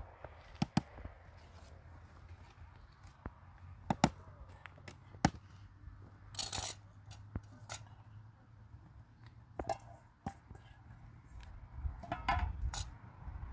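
Scattered sharp clicks and knocks of small hard objects, a second or more apart, with a short scraping rustle about six seconds in and a cluster of knocks near the end.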